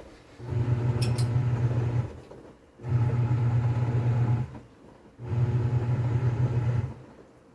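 TCL 7.5 kg top-load washing machine in its wash cycle, the motor driving the pulsator in three hums each about a second and a half long, with short pauses between.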